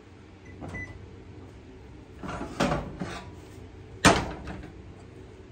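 Kitchen handling noises: a few knocks and clatters of things being moved and set down, the sharpest about four seconds in.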